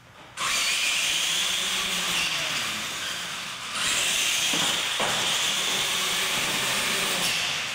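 Two electric R/C monster trucks launching off the start line together, their motors, gearboxes and tyres on concrete making a loud, steady hiss that starts suddenly and swells again about four seconds in. Two knocks about half a second apart come just after the swell.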